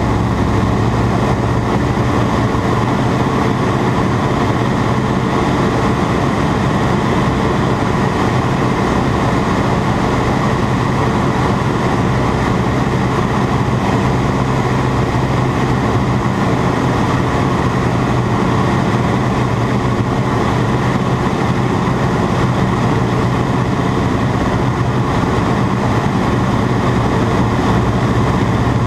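Ag-Cat agricultural biplane's engine running at a steady, loud, unchanging pitch.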